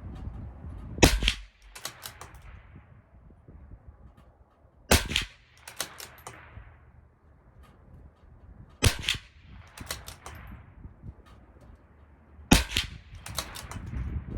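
Four .22 LR rimfire rifle shots from a CZ 457 LRP bolt-action rifle firing SK High Velocity Match ammunition, spaced about four seconds apart. Each sharp crack is followed within a second by a short run of quieter clicks.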